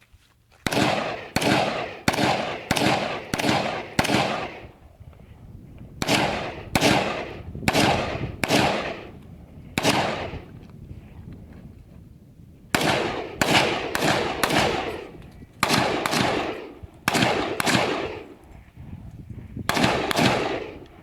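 Del-Ton DT Sport AR-15 rifle fired semi-automatically in quick strings of shots, about two a second, with short pauses between strings; each shot is sharp and followed by a ringing echo tail. About two dozen shots in all.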